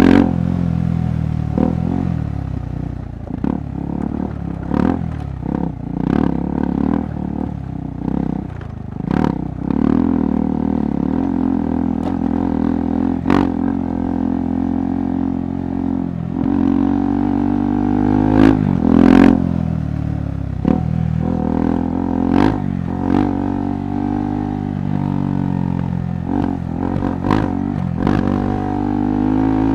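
KTM 390 Adventure Rally's single-cylinder engine pulling at low to middle revs, its pitch rising and falling with the throttle, on a rough trail. Frequent sharp knocks and clatters from the bike run through it.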